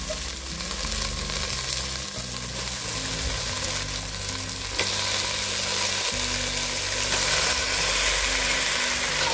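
Raw mutton pieces sizzling in hot oily onion-tomato masala in a pressure cooker, stirred with a wooden spatula; the sizzle grows louder about halfway in.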